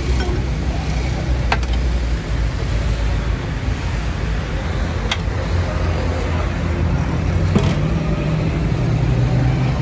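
Steady low rumble of street traffic, with three short sharp metallic clinks, a steel ladle knocking against the serving tray and bowl as broth is ladled out.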